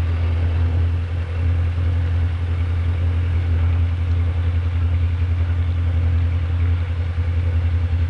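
Diamond DA20's four-cylinder piston engine and propeller idling steadily, heard inside the cockpit as a constant low drone.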